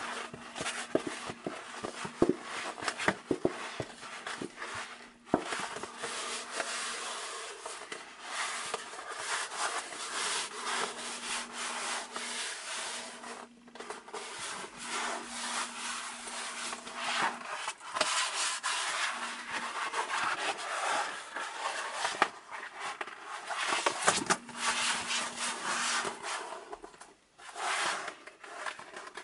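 Fingers rubbing, sliding over and flexing a sheet of 1.5 mm full-grain vegetable-tanned cowhide leather: a continuous dry rubbing and rustling with scattered sharp clicks and taps, the sharpest in the first few seconds.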